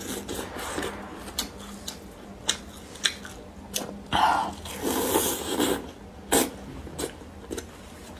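Close-miked wet chewing and sharp mouth clicks while eating a broth-soaked piece of fried egg from a bowl of spicy rice noodles, with a longer sucking slurp about four seconds in.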